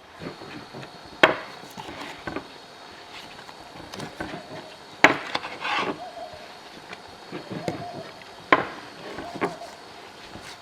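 Three sharp chopping strikes, roughly three and a half seconds apart, with lighter knocks and handling sounds between them.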